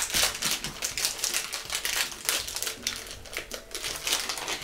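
Crinkly snack-bar wrapper being torn and peeled open by hand: a dense run of crackles that thins out near the end.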